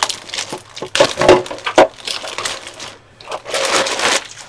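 Clear plastic bag crinkling and rustling in irregular bursts as a large plastic RC truck body shell is pulled out of it.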